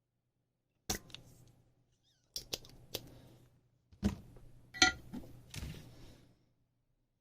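A series of sharp clicks and knocks, about half a dozen, from desoldering tools and a circuit board being handled; the loudest, a little before five seconds in, has a brief metallic ring.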